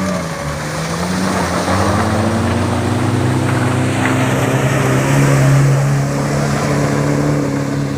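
Off-road vehicle's engine pulling under load, rising in pitch over about a second and then running steadily.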